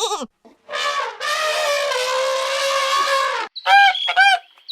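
An animal's long, brassy call of about two seconds, just after a shorter call. Near the end come two short goose honks.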